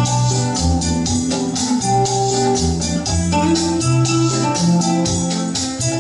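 Recorded music with a bass line stepping between held notes, sustained chords and a steady percussion beat, played back through Yamaha NS-55 loudspeakers driven by a Trio KA-7300D amplifier.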